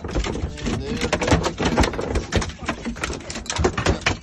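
Freshly gaffed halibut thrashing on a fibreglass boat deck: a rapid, irregular run of thumps and slaps.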